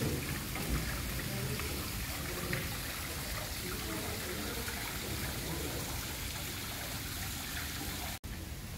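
Steady hiss of running water trickling in a garden water feature, with faint voices in the background.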